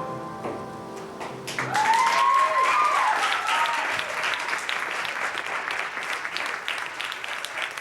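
Audience applause breaking out about a second and a half in as the last notes of a song die away, with a few cheers over the clapping at first, then tapering off.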